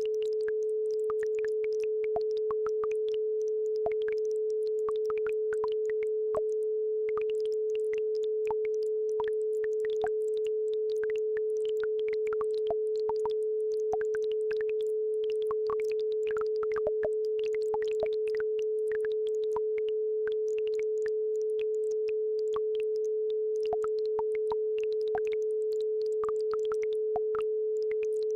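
A steady 432 Hz sine tone held without a break, with faint water trickling and bubbling of a babbling brook beneath it.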